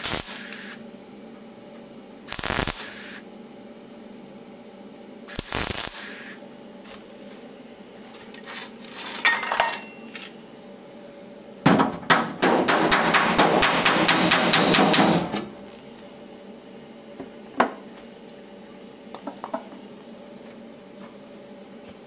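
MIG welder putting short crackling tack welds into car body panel steel, three brief tacks in the first six seconds. About halfway through, a rapid run of hammer blows on the panel over a dolly, about seven a second for three seconds, planishing the weld seam.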